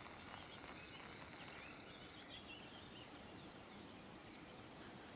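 Faint outdoor background hiss with a few faint, distant bird chirps about halfway through; a steady high hiss drops away a couple of seconds in.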